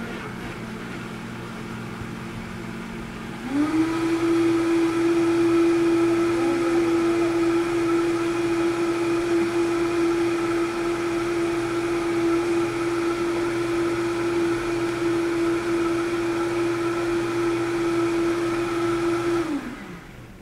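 High-speed countertop blender puréeing steamed spinach with milk and garlic. Its motor runs at a lower speed, then steps up to a higher, louder whine about three and a half seconds in. It holds steady at that speed, then winds down and stops near the end.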